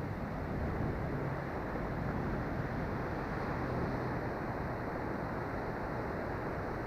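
Steady rush of surf and wind buffeting the microphone, with no distinct events.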